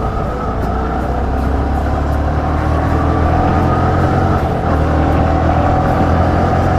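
Yamaha motorcycle engine running on the move, getting slightly louder over the first few seconds; the rider blames its loud engine sound on loose tappet nuts.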